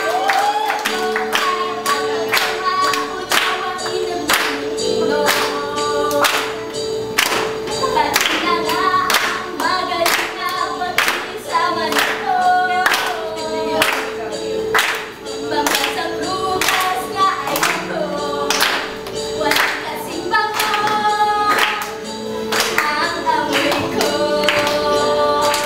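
A song with singing and music over a sharp, steady beat about twice a second.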